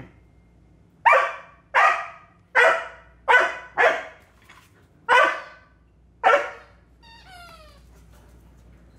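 A dog barking: seven sharp, loud barks over about five seconds, followed near the end by a brief, fainter whine that falls in pitch.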